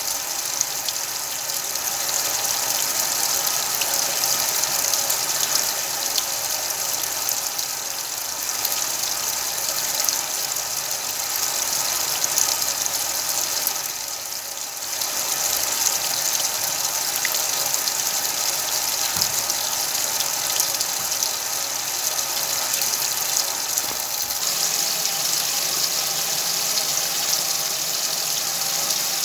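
Whirlpool washing machine running, a steady rush of water and machine noise. It dips briefly about halfway through and changes character near the end.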